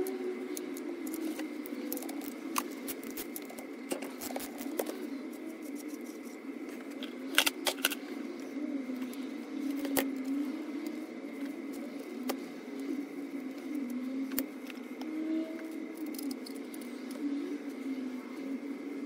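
Metal tools clicking and clinking against an MG Midget ribcase gearbox as its change selector bolts are undone, with a sharper cluster of clinks about seven to eight seconds in. A low wavering drone and a faint steady high whine run underneath.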